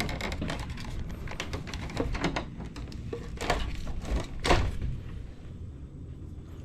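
Rummaging and handling things: a string of clicks, knocks and clatters, the loudest about four and a half seconds in, after which it quietens.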